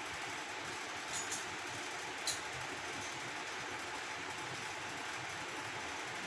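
Steady background hiss with two light clicks just over a second in and a sharper click a second later: the mixer grinder's jar being handled and opened after grinding.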